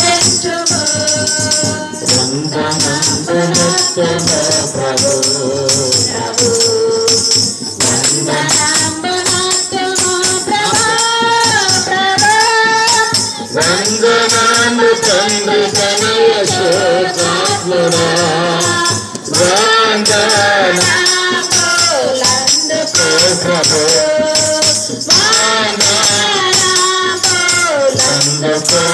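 A group of women singing a worship song together, accompanied by handheld jingle tambourines shaken and struck in a steady rhythm.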